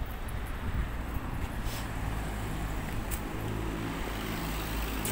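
A motor vehicle's engine running steadily, a low hum that holds one steady pitch from about two seconds in, with a few faint ticks over it.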